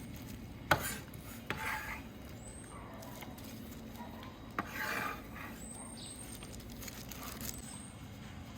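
Knife work on a wooden cutting board: three sharp knocks, two of them followed by a short rasping scrape, as when chopped onion is scraped together on the board.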